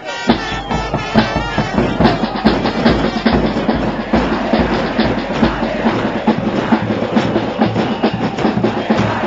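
Drums, bass drums among them, beating a fast, steady rhythm of about four to five hits a second.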